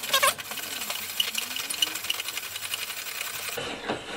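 Rapid, steady mechanical clicking rattle from the homemade jig's threaded adjusting rod being wound through its nut, stopping abruptly near the end, with a faint squeak under it.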